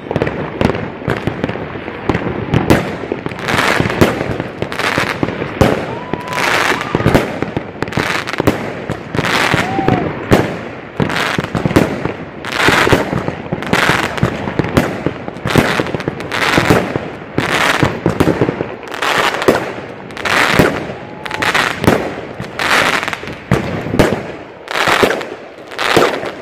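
Aerial fireworks bursting overhead: a long, regular string of loud bangs, a little more than one a second, with crackling between them.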